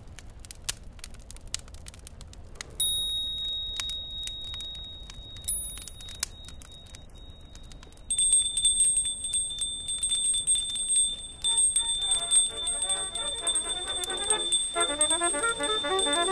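Faint scattered clicking, then a thin high ringing tone that grows much louder and pulses rapidly about eight seconds in, like an electric bell. Music with stepping notes comes in under it about twelve seconds in.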